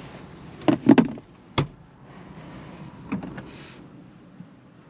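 Handling noise inside a car cabin: a cluster of loud knocks about a second in, a sharp click just after, and a smaller knock around three seconds in, over a low steady cabin hum.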